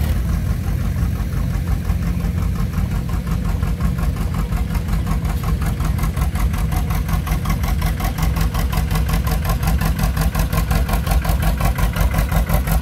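John Deere two-cylinder tractor running at low speed with an even popping exhaust beat, growing louder and clearer as the tractor comes close.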